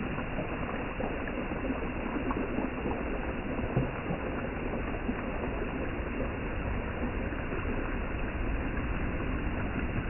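Small sea waves breaking and washing up a beach of rounded pebbles: a steady surf wash with scattered small clicks.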